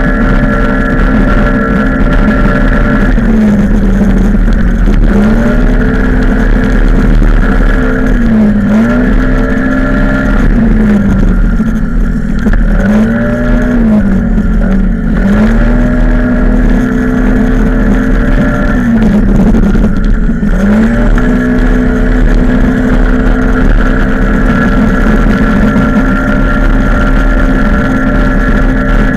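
Small motorcycle's engine heard from a camera mounted on the bike, held at high revs. Several times the revs sag and then climb again as the bike slows for corners and accelerates out of them.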